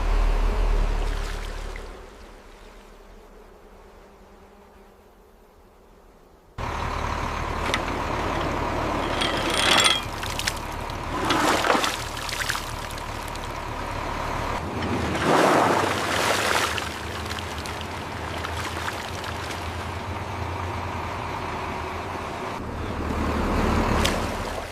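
Heavy vehicle running: a low rumble fades away over the first couple of seconds, then a steady engine-like noise with a constant tone cuts in suddenly about six and a half seconds in and carries on, swelling louder several times.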